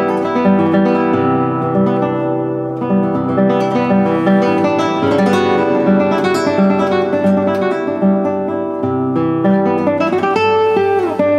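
Background music: acoustic guitar playing steadily, with plucked and strummed notes.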